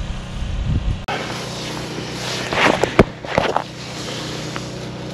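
Rustling and a few sharp knocks from hands and a jacket handling a freshly caught bluegill, over a steady low engine-like hum.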